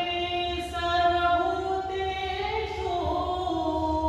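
Vocal music: a voice singing long held notes that glide slowly from one pitch to the next over a steady low drone.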